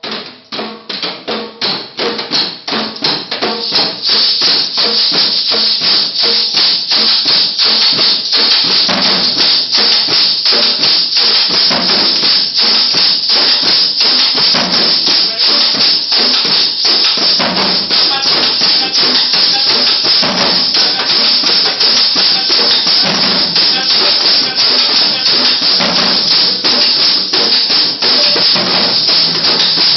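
A group of hand drums and a shaker playing a fast, steady Colombian rhythm together, building up in loudness over the first few seconds and then holding.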